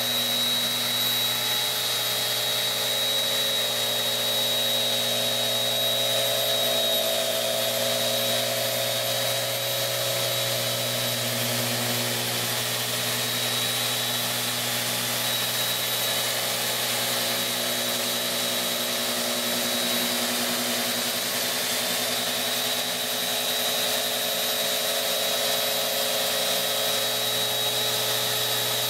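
Bosch GET 75-150 random orbital sander running steadily under load, its pad sanding old white paint off a pine board. A constant low hum under a steady high whine.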